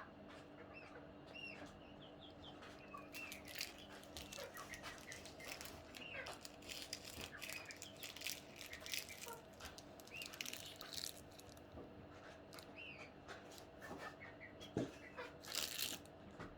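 Faint bird chirps, short and scattered throughout, with frequent brief rustling clicks over a steady low hum.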